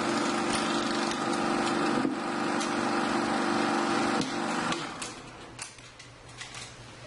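Bell and Howell 16mm sound film projector running, a steady hum with crackling and clicks; the hum stops about four and a half seconds in, leaving scattered clicks.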